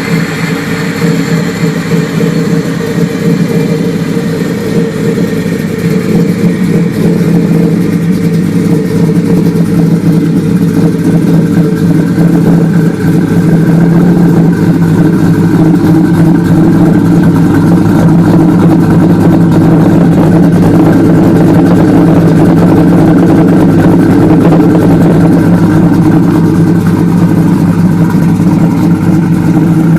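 Supercharged, cammed 5.4 L V8 of a 2004 Ford F-150 SVT Lightning idling steadily through a Bassani exhaust. It grows louder over the first dozen seconds, then holds steady.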